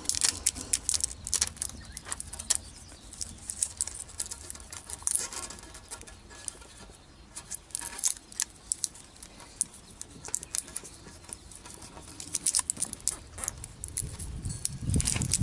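Aluminium tape crinkling and crackling as it is wrapped and pressed by hand around a small metal part, in irregular clusters of sharp crackles that are thickest at the start and again near the end. A low thud comes just before the end.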